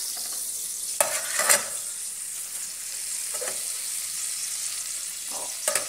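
Butter melting and sizzling gently in a metal pot over low heat, stirred with a metal spoon that scrapes and taps the pot a few times.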